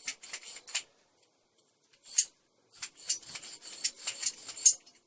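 Metal parts of a dismantled moped rear shock absorber clicking and scraping as they are handled: a few quick clicks at first, a single one about two seconds in, then a longer run of scrapes and clicks.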